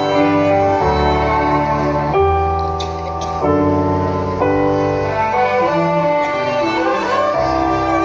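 Slow instrumental music led by violin and piano, long held notes that change about once a second.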